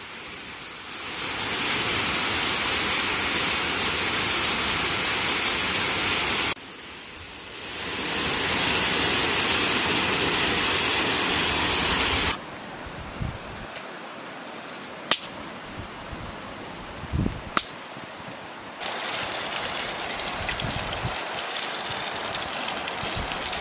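Waterfall pouring into a plunge pool: a loud, steady rush of falling water in two stretches, broken by a short dip about six seconds in. The rush cuts off about twelve seconds in. Quieter sounds with a couple of sharp knocks follow, then a steady hiss near the end.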